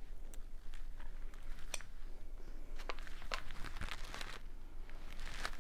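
Scattered small clicks, then a crinkling rustle of packaging handled close to the microphone.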